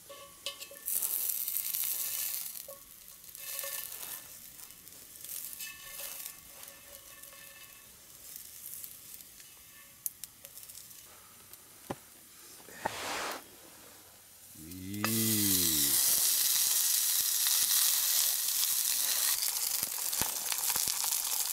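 Food frying in a hot pan: scattered stirring and scraping at first, then about two-thirds through a loud, steady sizzle sets in suddenly and keeps on.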